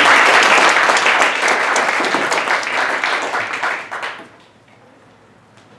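Audience applauding in a hall; the clapping fades out about four seconds in.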